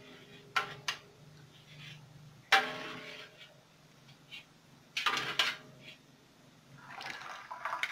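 A metal ladle and a mesh strainer clinking against a steel wok while boiled hibiscus flowers are scooped out of the water. There are a handful of clinks, each ringing briefly, and the loudest comes about a third of the way in.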